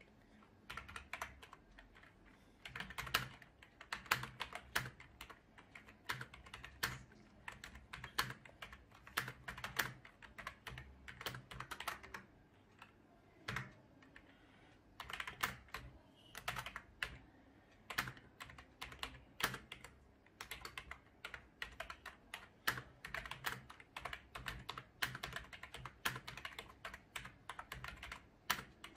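Typing on an HP K300 membrane gaming keyboard: runs of quick keystroke clicks broken by short pauses.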